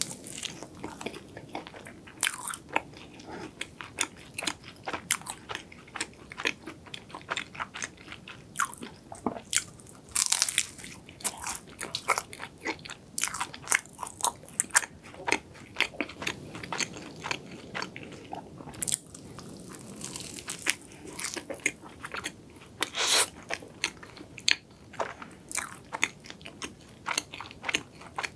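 Close-miked biting and chewing of a cream-topped cronut, a doughnut of flaky, laminated croissant dough: a dense run of crisp crackles from the pastry layers, with several louder crunching bites.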